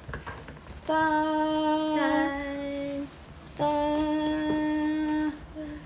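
A woman humming in long held notes, each lasting a second or two and stepping slightly down in pitch at its end, with short breaks between them.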